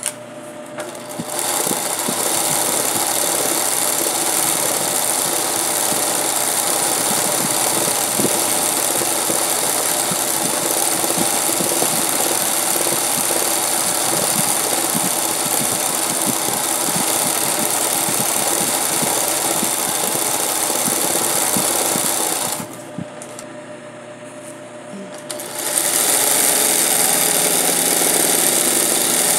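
Singer 20U industrial zig-zag sewing machine running at speed, stitching freehand embroidery. It starts about a second in and runs steadily. It stops for about three seconds a few seconds before the end, then starts again.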